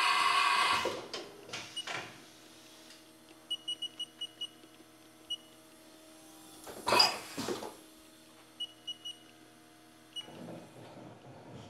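Haas CNC mill control panel keypad giving short high beeps as keys are pressed, in a run of about five, then singles and a run of three. About seven seconds in there is a loud sudden burst of air from the spindle's tool release as a tool holder is loaded. A loud whirr stops about a second in, and a steady low machine hum runs underneath.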